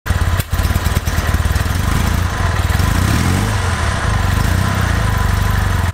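A combustion motorcycle engine runs with a rapid, even firing pulse, rising and falling in pitch around the middle as if revved. It starts and cuts off abruptly, laid over the silent electric motorcycle as a joke, not the electric motor's real sound.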